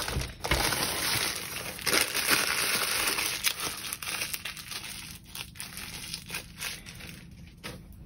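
Packaging crinkling and rustling as it is handled, louder in the first half and dying down toward the end.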